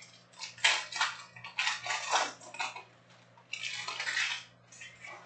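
Wrapper of a Panini Prizm World Cup fat pack crinkling and tearing as it is ripped open by hand, in several short crackly bursts with the longest near the end, over a faint steady low hum.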